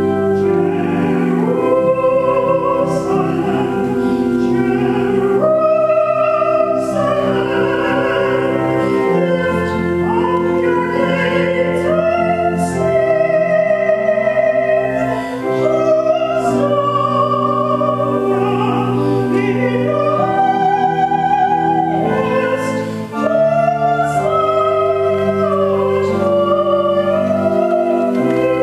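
A solo singer with a wide vibrato, accompanied by a church pipe organ holding sustained chords. The melody sits high, in a soprano range.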